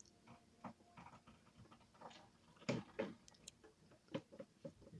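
Faint scattered clicks and taps, with a couple of louder ones around the middle.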